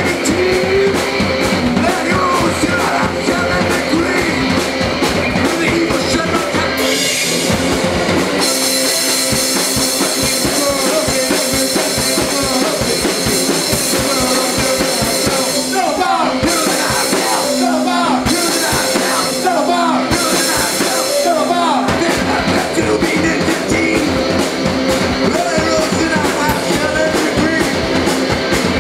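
Live rock band playing a song loudly, with drum kit and singing. About a quarter of the way in the heavy low end drops away for a sparser stretch of held guitar-like tones, and the full band comes back in about two-thirds of the way through.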